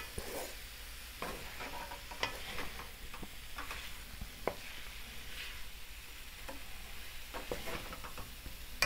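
Wooden spatula stirring and scraping sliced asparagus, mushrooms, bell peppers and onions in a metal sauté pan, with irregular clicks against the pan over a faint sizzle of the vegetables frying.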